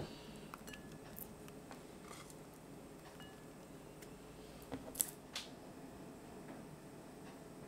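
Quiet plating sounds: faint light ticks as chopped spring onions are scattered over the rice. About five seconds in come three sharp clicks as hands take hold of the ceramic bowl on the wooden table.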